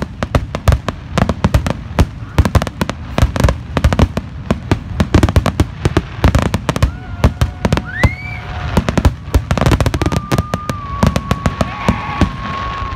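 Aerial fireworks shells bursting in quick succession, several loud bangs and pops a second, overlapping with one another. A high tone rises about eight seconds in and another is held steady near the end.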